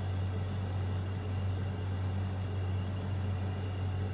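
Steady low hum with an even hiss underneath, unchanging throughout: the room's background noise from a running appliance or electrical hum.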